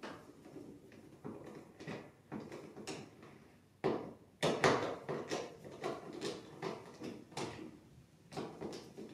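Irregular knocks and scrapes from hands handling the transducer cable against the plastic kayak, with the loudest pair of knocks about four seconds in.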